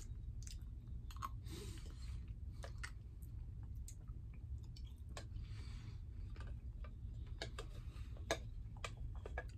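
Eating a yogurt and berry parfait with a metal spoon from a plastic cup: irregular clicks and scrapes of the spoon against the cup and teeth, with soft wet chewing and mouth sounds. A steady low hum runs underneath.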